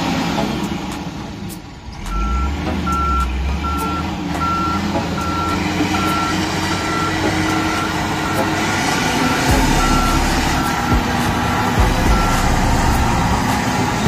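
Volvo motor grader backing up: its reversing alarm beeps at a steady pace, about one beep every three-quarters of a second, starting about two seconds in, over its diesel engine running.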